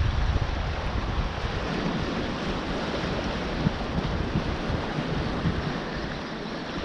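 Sea water washing and surging over a shallow, kelp-covered rocky reef, with wind buffeting the microphone.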